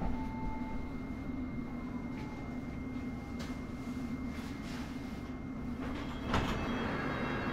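London Underground S7 stock (Bombardier Movia) train running, heard from inside the carriage: a steady hum with a thin high tone over it. A few clicks and knocks come through, the loudest about six seconds in.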